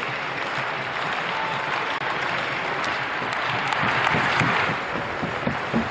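Arena crowd applauding and clapping, swelling about four seconds in, with a quick series of low thumps near the end.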